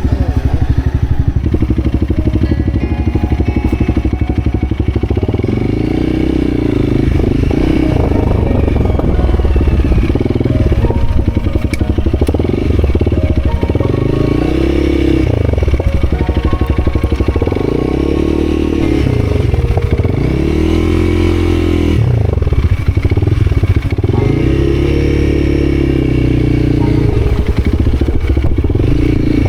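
Motorcycle engine revving up and down under load on a climb, its pitch rising and falling again and again.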